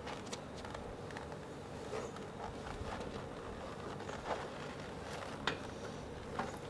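Scattered crinkles and rustles of the plastic wrap on a meat tray being handled and clutched, a few sharp crackles standing out, over a faint steady hum.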